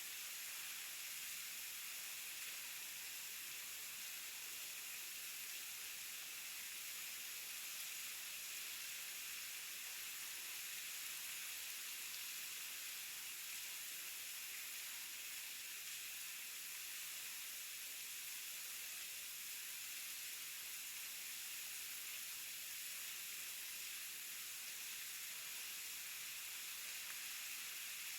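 Waterfall rushing steadily, a constant hiss with little low rumble.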